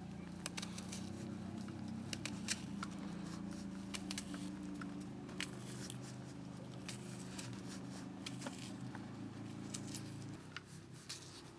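Knife peeling a red onion, the dry papery skin crackling and snapping in scattered small sharp clicks, over a steady low hum that stops near the end.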